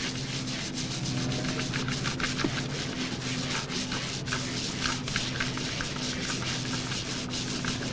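Power polisher working on a yacht's hull: a steady motor hum with many short clicks and rubbing against the hull.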